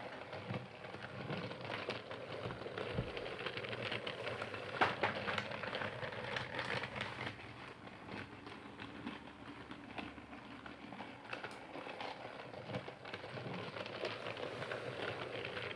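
Percy toy train running, a dense, irregular clicking and crackling with no clear rhythm.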